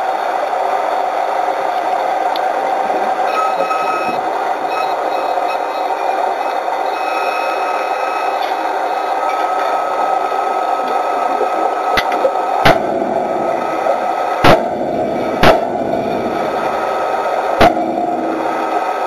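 Steady underwater rush of rising bubbles. From about two-thirds of the way in, four sharp clanks of a hand hammer striking a steel plate on a ship's hull, spaced one to two seconds apart.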